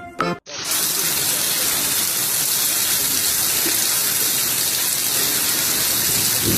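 Steady rushing of water that starts abruptly about half a second in and keeps an even level, after a brief tail of music.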